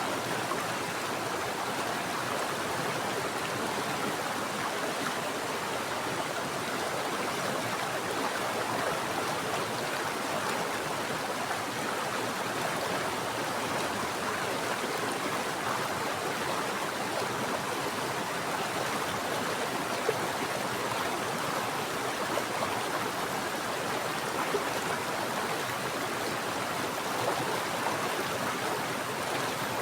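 Mountain stream flowing, a steady rush of running water with a few brief louder splashes in the second half.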